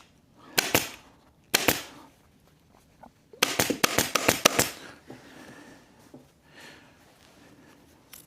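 Upholstery staple gun firing staples through fabric into a chair frame: two pairs of sharp shots, then a quick run of about eight or more near the middle.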